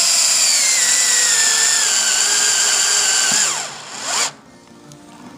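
Power drill driving a self-tapping screw into aluminium tubing over steel conduit: a loud, steady motor whine that slowly sinks in pitch as the screw goes in, then slows, briefly picks up again and stops about four seconds in.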